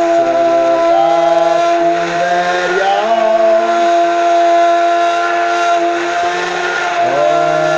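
Immersion blender motor running at power, blending a banana shake: a loud, steady whine whose pitch wavers as the blades churn through the fruit, dipping and recovering near the end.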